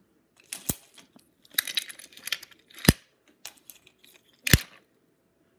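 Wooden toy train trucks being pushed along wooden track and coupled: three sharp clacks, about a second in, near the middle and near the end, as the metal magnetic couplings snap together, with scraping and rattling of wooden wheels and track between them.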